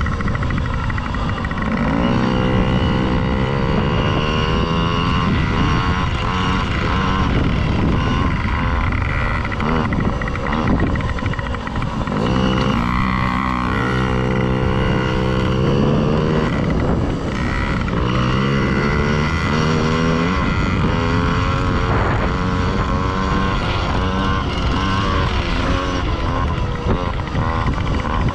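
Yamaha PW50 mini dirt bikes' small two-stroke engines revving, the pitch climbing and dropping again and again as the throttle opens and closes.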